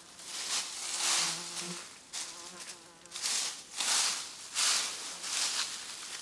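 Dry leaf litter rustling and crackling in a string of short swells as it is gathered up by hand. A small insect buzzes faintly through the first half.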